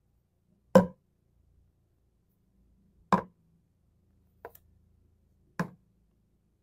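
Skincare bottles and jars set down one at a time on a shelf: three sharp knocks about two and a half seconds apart, with a fainter tap between the last two.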